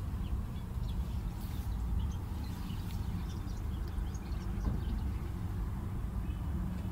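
Light, scratchy rustling of a dry straw nest as hands handle dove chicks in it, dying away about five seconds in, over a steady low background rumble.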